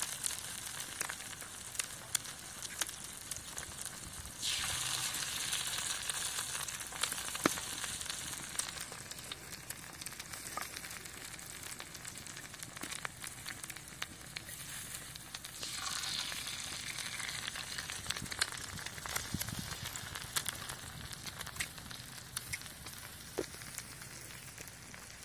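Eggs frying in oil on a hot flat iron griddle: a steady sizzle scattered with sharp crackling pops. It swells louder about four seconds in and again about sixteen seconds in, as fresh eggs are cracked onto the hot metal.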